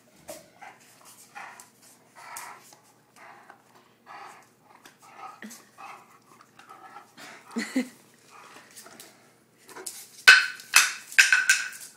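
Greater Swiss Mountain Dog panting in quick short breaths, about two a second, during rough play. Several louder, sharper sounds come near the end.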